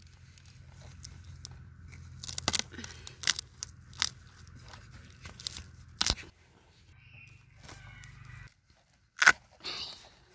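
Machete blade chopping and scraping in dry, clumpy soil around a cassava root, with crunching and tearing of soil and roots. A handful of sharp knocks, the loudest near the end.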